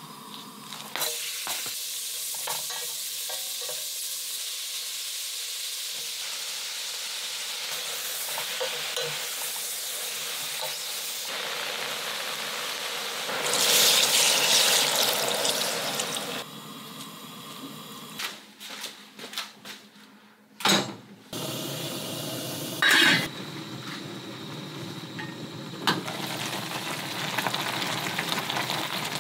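Beef and seaweed sizzling in oil in a stainless-steel pot for beef seaweed soup, starting about a second in. About halfway, water poured into the hot pot makes a louder rushing hiss for a few seconds. After a few sharp clinks and knocks, the soup bubbles steadily at the boil.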